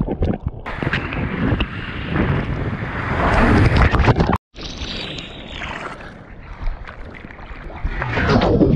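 Breaking-wave whitewater rushing and splashing over a camera at the water's surface. About four and a half seconds in, the sound cuts out for a moment and comes back muffled as the camera goes under the foam. It grows loud and splashy again near the end.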